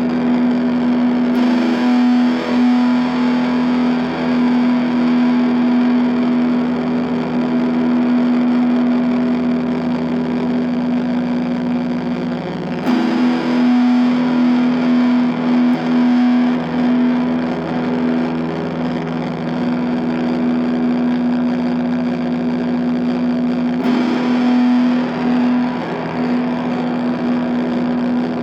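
Distorted electric guitar, a Fender Jazzmaster with Stonewall Fat Jazzmaster pickups through the ESI Transponder prototype pedal and an Orange Micro Dark amp with gain at 7 into a 1x8 micro cab. It holds long, sustained notes that are struck afresh three times, roughly every eleven seconds.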